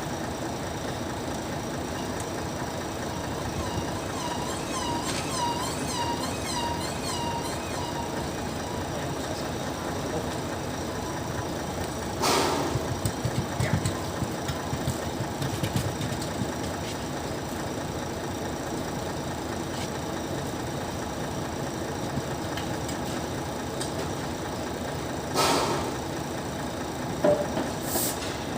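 Steady mechanical hum of a workshop with a running engine in the background, broken by a few sharp metal knocks and clanks from work on the clutch and transmission, once near the middle and twice near the end. A run of short, repeated chirps sounds from about four to eight seconds in.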